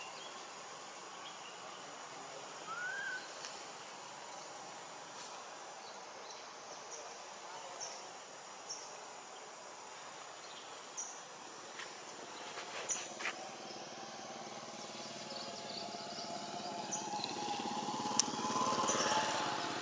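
Outdoor tree-canopy ambience: a steady hiss of background noise with scattered short, high bird chirps. The noise swells and grows louder over the last few seconds, with a low hum in it.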